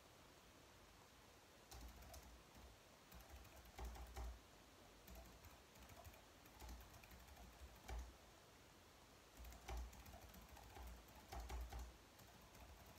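Soft typing on a slim, low-profile wireless keyboard: runs of quick keystrokes broken by short pauses, starting about two seconds in and stopping shortly before the end.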